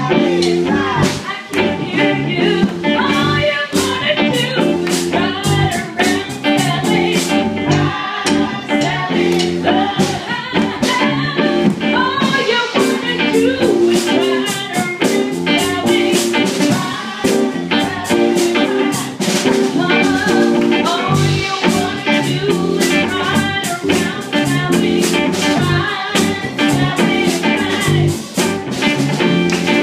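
A live blues band playing: a woman singing into a microphone over electric guitar and a drum kit.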